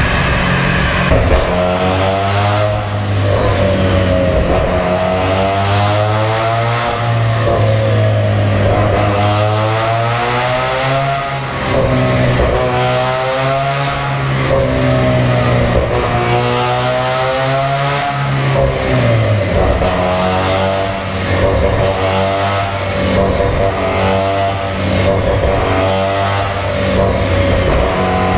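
Mazda RX-7 FD drift car's engine revving on a chassis dyno during tuning, its pitch climbing and dropping again every two to three seconds, over a steady low drone.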